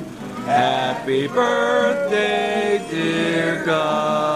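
Music with a singing voice holding long notes.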